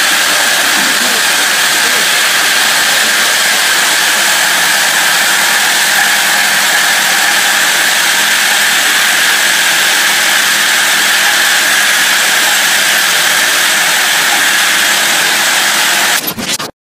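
Automated hinge assembly machine running with its vibratory bowl feeder, making a loud, steady mechanical noise that cuts off suddenly near the end.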